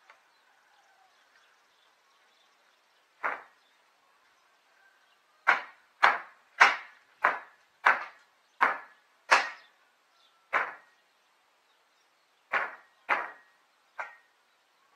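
Hand hammer striking the old wooden roof planking, about a dozen sharp blows: a single one, then a quick run of eight, then a few more. Some blows leave a short metallic ring.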